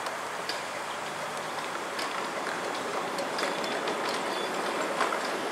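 Ride-on live-steam scale locomotive and its riding cars rolling past on small-gauge track: a steady rolling rumble and hiss with scattered metallic clicks from the wheels over the rail joints, getting a little louder toward the end.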